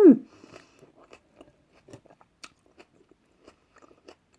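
A person chewing food close to the microphone: a brief hummed 'mm' of enjoyment at the start, then a run of small, irregular crunchy mouth clicks.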